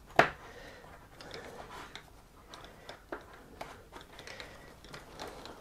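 Small screw being turned into a pump cover with a hand screwdriver: a sharp click near the start, then faint scattered ticks and scrapes of the tool and screw.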